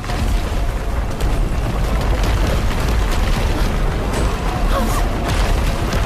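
Film sound effects: a deep, continuous rumble with scattered crackling crashes, over background music.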